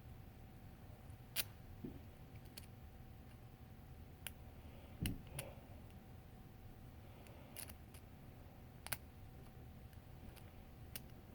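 Lock picking: faint, sharp metallic clicks of a pick and tension wrench working the pins of a challenge lock, about eight at irregular intervals a second or two apart, over a faint steady hum.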